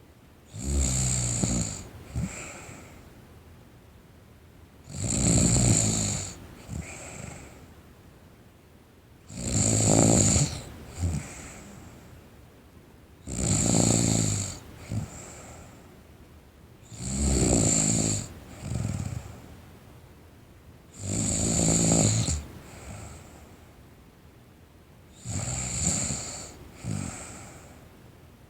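A sleeping teenage girl snoring steadily: seven loud snores, about one every four seconds, each followed by a short, softer sound.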